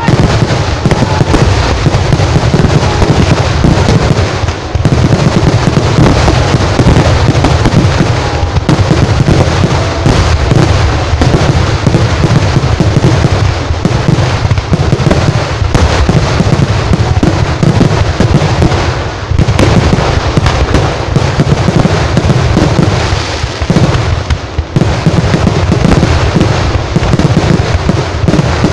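Kerala temple-festival fireworks display: a dense, unbroken barrage of loud bangs and crackling with rockets going up and shells bursting overhead.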